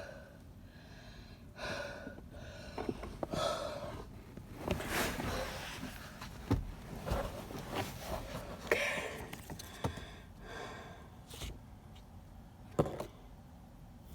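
Rustling and scraping of fabric and straps, with scattered clicks and knocks of plastic, as a child car seat is worked into place on a car's back seat.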